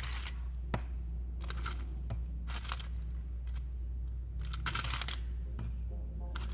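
Loose metal-tabbed power MOSFETs in TO-220 packages clinking and rattling against each other as a hand stirs through a plastic box of them, in irregular bursts of jingling clicks.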